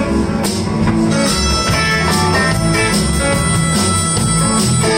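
A live blues band playing an instrumental intro, with electric guitar over bass and drums. A single high note is held for about three seconds through the middle.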